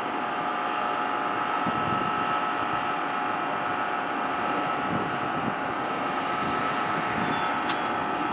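New Jersey Transit MultiLevel passenger train rolling slowly along the track, a steady mechanical hum with a constant high-pitched whine. A short sharp click sounds near the end.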